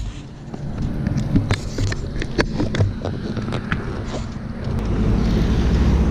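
Wind buffeting the microphone with scattered sharp knocks, then, about five seconds in, the steady low hum of a car's engine passing close by grows louder.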